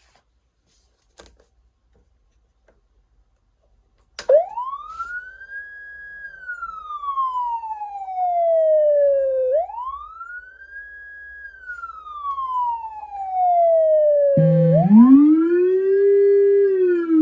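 Electronic siren wail that starts about four seconds in: slow sweeps that climb quickly, hold at the top and slide back down, about five seconds apart. Near the end, a low-frequency rumbler-type companion siren driving a woofer cuts in, following the same sweep far lower in pitch.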